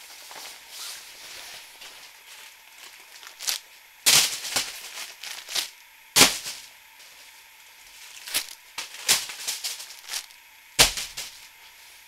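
Plastic-wrapped packs of toilet paper tossed one after another onto a concrete floor, landing with sharp thumps a second or two apart, five loud ones and a few softer ones, with softer rustling between.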